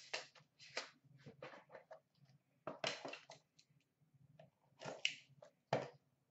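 Packaging on a sealed trading-card box crackling and scraping as it is cut open by hand: a faint, irregular string of short crackles and clicks, loudest about three seconds in and near the end.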